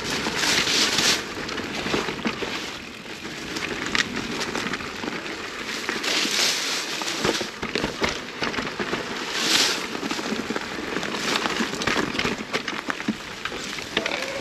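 Electric mountain bike rolling over bush singletrack: tyres crackling over dirt and twigs, with steady clicks and rattles from the bike. Three louder swishes come near the start, about halfway and about two-thirds of the way through.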